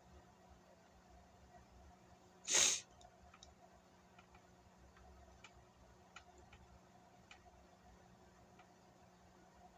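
One short human sneeze about two and a half seconds in, a quick sharp burst of breath. Otherwise quiet room tone with a few faint ticks.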